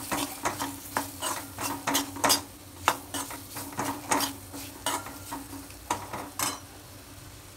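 Steel spoon scraping and clinking against a steel kadai, stirring fried banana cubes with spices, over a faint sizzle. The strokes come every half second or so and stop about six and a half seconds in.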